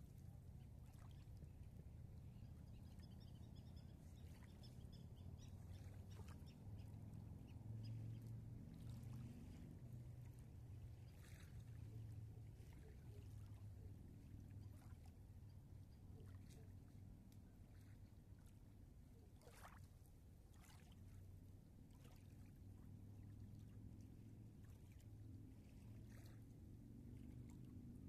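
Faint small waves lapping at the shore of a calm river: soft splashes every few seconds over a low steady rumble.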